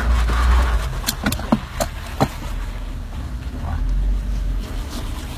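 Off-road vehicle crawling up a rocky ledge: a low rumble with wind buffeting on the microphone, and a quick run of sharp knocks and clicks about one to two seconds in.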